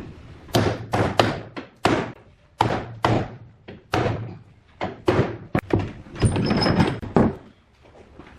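Irregular series of about a dozen heavy knocks on wood, each with a short fading tail, with a brief scraping stretch near the end.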